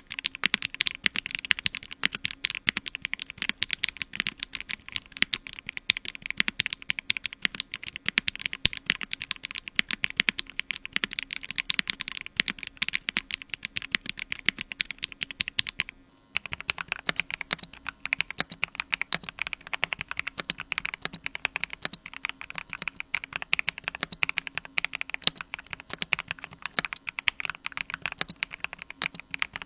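Fast, continuous typing on a computer keyboard: a dense run of key clacks, with a short break about halfway before the typing carries on.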